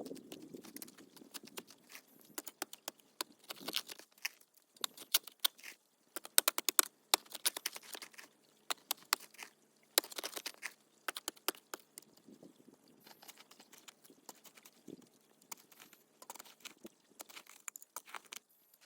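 Digging by hand in rocky, gravelly soil: a metal garden tool scraping and clinking against small stones in quick clusters of sharp clicks and crunches. The clicks come thickest through the middle and grow sparser towards the end.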